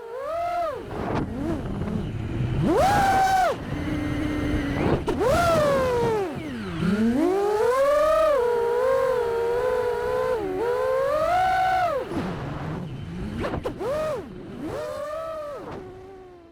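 FPV quadcopter's motors and propellers whining, the pitch rising and falling with the throttle in repeated surges, dropping low once about seven seconds in and fading away near the end.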